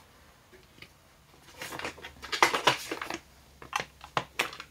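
Small craft tools and their plastic holders being picked up and set down on a plastic cutting mat: a flurry of light clicks and rustling about two seconds in, then a few single taps near the end.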